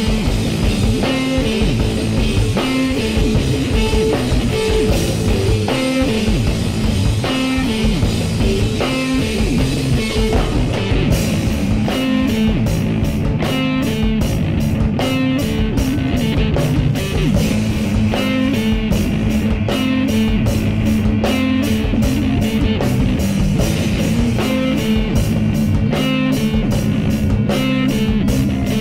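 Rock music with guitar and drums; the drumming grows busier about eleven seconds in.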